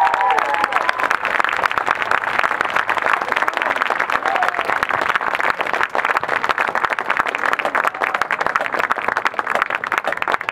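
Crowd applauding as a marching band's last brass notes cut off just after the start; the clapping slowly thins out.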